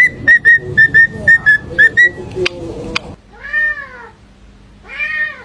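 A parrot whistles a quick run of about nine short, loud, even notes, roughly four a second. Then come two drawn-out meows, each rising and falling in pitch.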